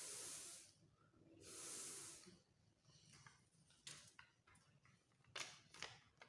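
A person demonstrating the letter F's sound, a voiceless "fff" hiss made through the teeth and lip, twice, each under a second long. A few soft clicks and short breathy sounds follow near the end.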